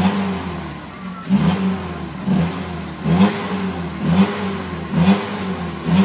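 Built Toyota pickup's engine revved in short bursts, about once a second, as the rig crawls over a rock ledge.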